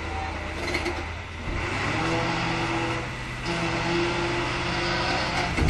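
Hook-lift truck's diesel engine running under load to drive the hoist hydraulics as the container is lifted. Its pitch steps up about one and a half seconds in and shifts again a couple of seconds later, and there is a short thump at the very end.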